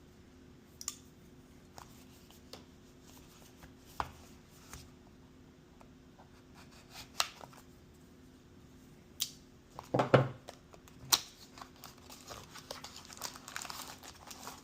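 Product packaging being opened by hand: scattered clicks and taps of the box and contents being handled, a louder flurry of handling about ten seconds in, then plastic wrapping crinkling near the end.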